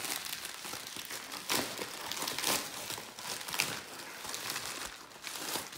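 White plastic mailer envelope crinkling and crackling as it is pulled open by hand and its contents reached for, with a few louder crackles along the way.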